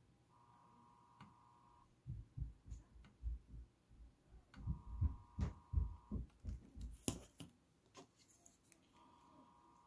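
Bench desoldering on a motherboard: a run of soft low thumps from handling, with a couple of sharp clicks near the middle, and a faint steady tone that sounds three times, each for about a second and a half.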